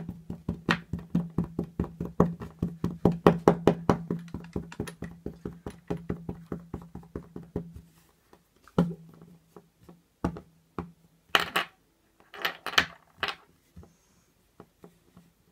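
A fast, even run of knocks on a wooden desk, about five a second, as a modelling-clay figure is pounded apart; about eight seconds in it breaks off into a few scattered knocks and short rustles.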